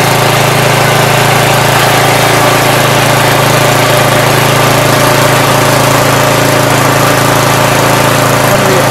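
Craftsman tiller's Briggs & Stratton single-cylinder engine running steadily at an even pitch and level.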